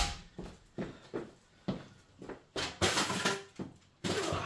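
A small folding step ladder being carried in and set down, its frame and steps knocking and rattling: a string of short knocks with a longer clatter about three seconds in and another near the end.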